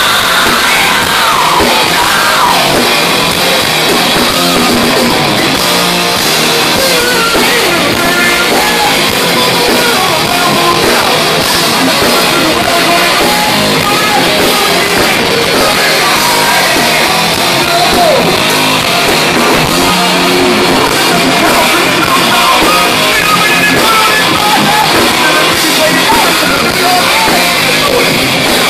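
Hard rock band playing live and loud: distorted electric guitars, bass and a drum kit, with a lead guitar line bending in pitch.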